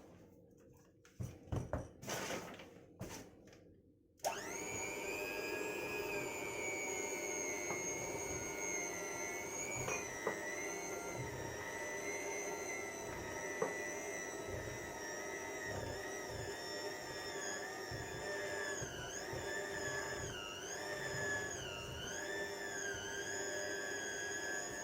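Electric mixer switching on about four seconds in after a few light knocks, then running steadily as it beats thick cookie dough, its pitch dipping and wavering later as the beaters take the load.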